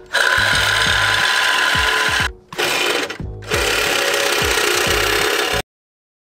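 Cordless reciprocating saw cutting the sheet-steel backing plate of a drum brake, trimming it down to act as a dust cover. It runs in three loud stretches with two short pauses, then cuts off abruptly a little past halfway.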